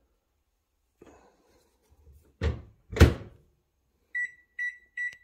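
An over-the-range microwave oven door being shut, heard as two solid thunks, followed by three short high beeps about 0.4 s apart as its keypad buttons are pressed.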